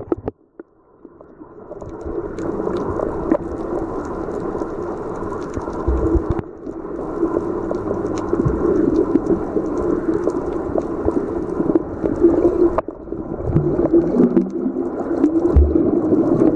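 Muffled underwater sound picked up by a camera held below the surface: a steady low drone that swells in over the first couple of seconds, with faint scattered clicks and crackles above it.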